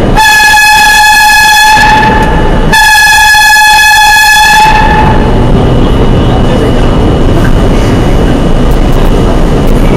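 R32 subway car's horn sounding two long, steady blasts, an awful-sounding harsh tone, as the train nears the construction workers in the tunnel ahead; after the second blast ends about halfway through, only the train's rumbling running noise in the tunnel remains.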